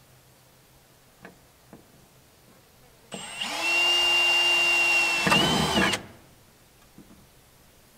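Power drill running for about three seconds, driving a fastener through a pipe strap into the building's sheet-metal wall; its pitch holds steady, wavers and rises briefly near the end as it seats, then stops. A few faint clicks before and after.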